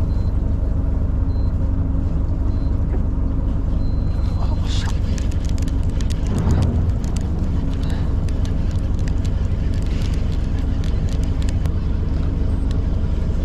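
A boat's engine running steadily as a constant low drone, with wind and water noise over it and scattered light clicks and ticks.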